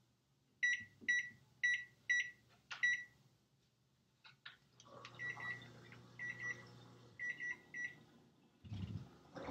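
Microwave keypad beeping as its timer is set to 25 minutes: about six short single beeps over the first three seconds, then a few clicks and three clusters of rapid beeps over a steady hum and handling noise. A low thump comes near the end.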